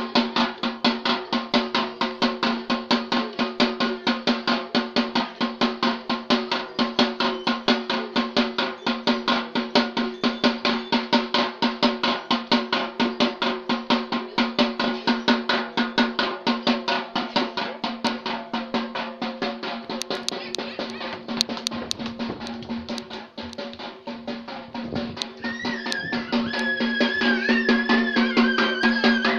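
Drum beaten in a quick, steady rhythm as accompaniment to a topeng monyet (Indonesian street monkey show), with a steady ringing tone under the beat. Near the end a high, wavering melody joins in.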